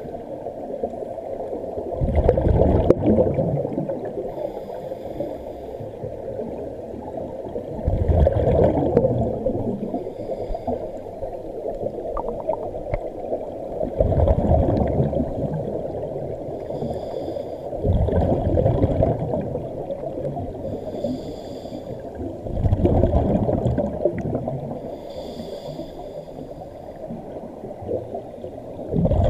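Scuba diver breathing through a regulator underwater: a rumbling burst of exhaled bubbles about every five seconds, with a fainter hiss of each inhalation in between.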